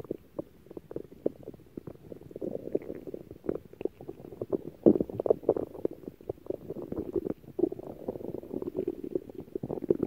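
Stomach growling: a long, irregular run of low gurgles and short bubbly pops, with the loudest pop about five seconds in.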